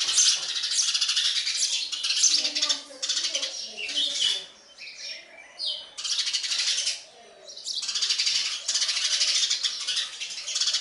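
Sparrow chicks begging for food: a dense, rapid, high-pitched chatter of calls, dropping away twice briefly in the middle, with a few clearer single chirps in the first lull.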